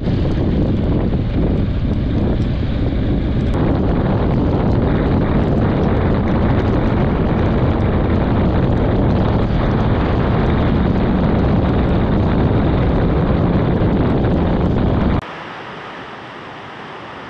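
Heavy wind buffeting the microphone of a moving motorcycle riding through cold rain. About fifteen seconds in it cuts to a much quieter, steady hiss of heavy rain.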